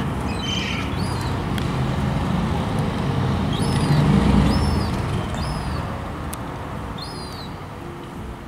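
Steady rumble of road traffic that swells about four seconds in and then fades. Over it come several short, high chirping bird calls, about one a second in the second half.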